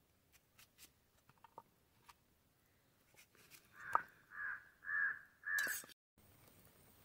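A crow cawing four times in quick succession, about two calls a second, starting about four seconds in; a few faint ticks come before it.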